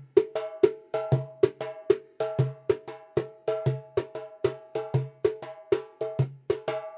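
Caja vallenata hand drum played with both hands in the five-stroke chandé base rhythm: canto, fondo and quemado strokes repeating in a steady pattern of about three to four strokes a second, a deep low stroke recurring among higher ringing ones.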